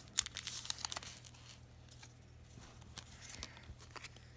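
Plastic wrapping on a pack of Pokémon trading cards being torn open and crinkled by hand: a quick run of sharp crackles in the first second, then only a few scattered crinkles.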